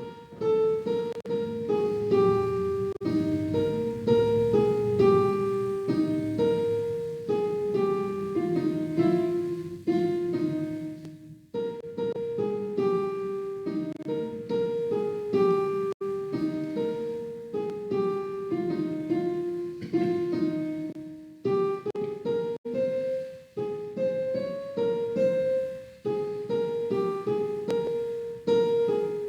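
Piano playing a hymn tune in chords as the introduction before congregational singing: struck notes that ring and fade, a stepwise melody over a steady chordal accompaniment, with brief pauses between phrases.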